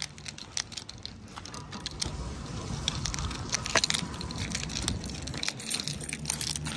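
Footsteps on brick paving strewn with dry leaves, with a steady run of small irregular clicks and rattles from things carried and jostled while walking.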